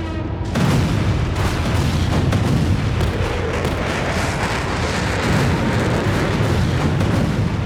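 Battle sound effect: a continuous rumble of explosions with dense crackling, starting about half a second in and easing off near the end.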